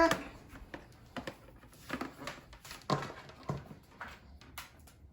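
Handling noises as a USB cable is plugged into a laptop: scattered light clicks and knocks, about one every half second to a second.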